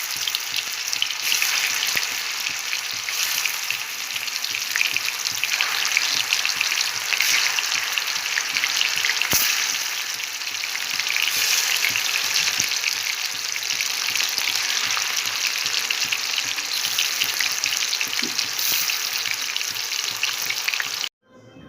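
Chicken mince balls deep-frying in hot oil: a steady, dense sizzle and crackle that stops suddenly near the end.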